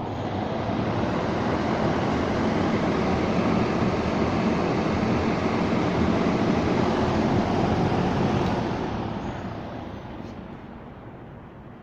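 TPI PB 36-D portable drum fan running with a loud, steady rush of air. Near the end it dies down gradually.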